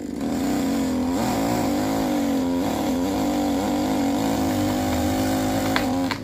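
Large petrol chainsaw running at full throttle, cutting through the upper trunk of a spruce to drop its top, the engine note wavering under load. Two sharp snaps near the end.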